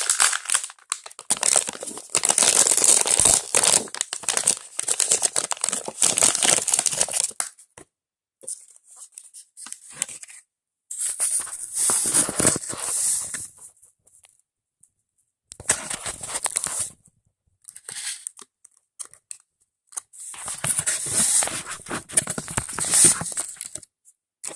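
Toy packaging being torn open and crinkled by hand, in several bursts separated by brief silences.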